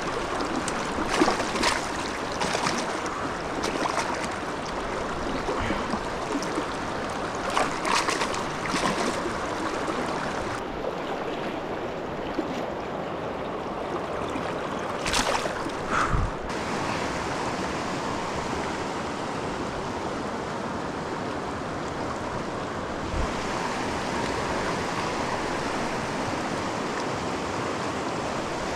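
Small mountain stream running, a steady rush of water, with a few short sharp knocks in the first half and again about fifteen seconds in.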